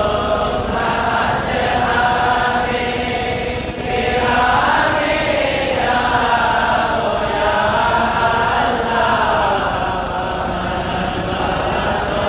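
Voices chanting together in a drawn-out devotional chant, the notes held long and wavering up and down, with a brief dip about four seconds in.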